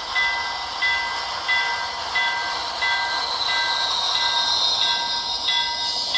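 Rapido Turbo 2 HO-scale model train running along the track, its sound decoder playing a steady turbine-like whine. A short tone and louder beat repeat about every two-thirds of a second.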